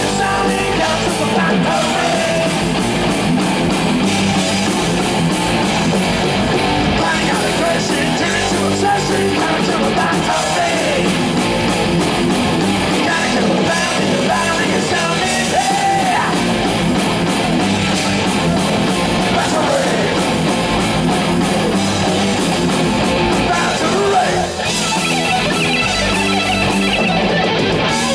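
Live heavy metal band playing: distorted electric guitars, bass guitar and a drum kit, loud and steady, with a brief dip in level near the end.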